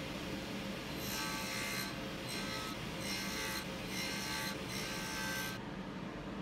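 Table saw blade, set very low, cutting a shallow slot in a small wooden block in about five short passes, each a brief grinding hiss with a faint ringing, over the steady hum of the running saw; the cutting stops about five and a half seconds in.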